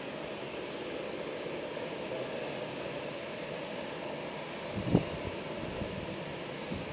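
Jet airliner's engines running at taxi power, a steady drone as the plane rolls along the taxiway. A single short thump about five seconds in.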